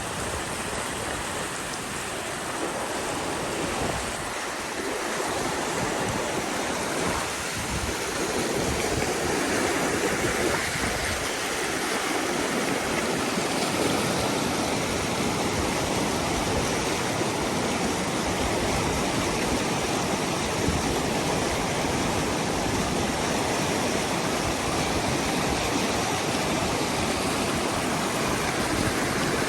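Rushing creek water: a steady, unbroken rush that swells a little in the first few seconds and then holds even.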